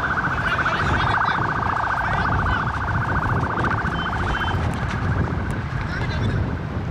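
A loud, rapidly warbling trilled tone, siren-like, that cuts off about four and a half seconds in, over a steady low rumble.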